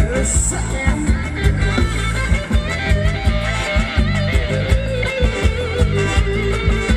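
Thai ram wong dance music played by a live band: a steady beat with a melody line over it.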